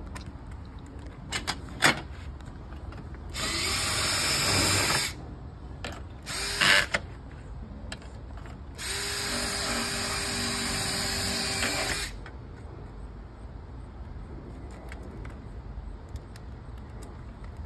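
Power drill running twice at the top of a storm door frame, once for about two seconds and then for about three seconds with a steady motor hum, while the door's expansion piece is being fastened. A few short clicks come before the first run and a brief whir between the two.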